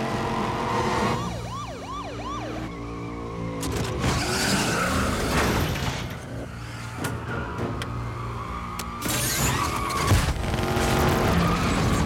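Car-chase sound effects: cars revving and skidding while a police siren yelps in quick rising-and-falling wails. A louder stretch of skidding and rushing noise comes in the middle, and a sharp bang lands near the end.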